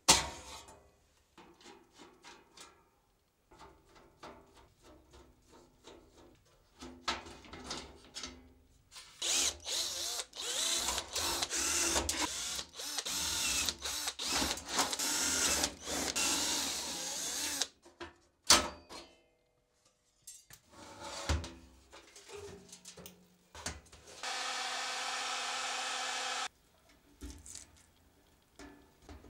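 Cordless drill boring into the sheet-steel frame of a PC case. It runs for about nine seconds with many brief stops, then runs steadily for a couple of seconds near the end. Light metallic clicks and knocks from parts being handled come before and after.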